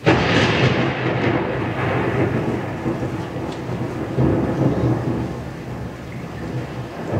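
Thunder sound effect: a sudden thunderclap that rolls into a long rumble with rain, swelling again about four seconds in.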